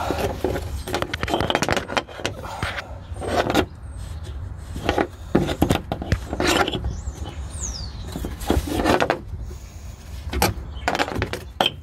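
Irregular rubbing, knocking and clicking as a hand works a replacement oxygen sensor and its wiring lead into place under a car's engine, over a steady low hum.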